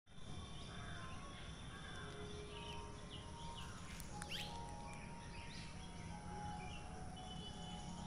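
Faint outdoor ambience with scattered short chirps of small birds over a low steady rumble, the clearest chirp about halfway through.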